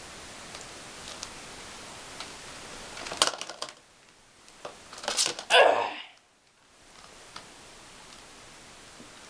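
Clicks and rustling from objects being handled: a quick cluster of clicks about three seconds in, then a louder rustling scrape about five seconds in, over a steady hiss.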